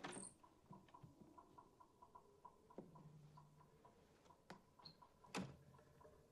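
Near silence: faint ticking about four times a second, with a sharp click at the start and another a little past five seconds in.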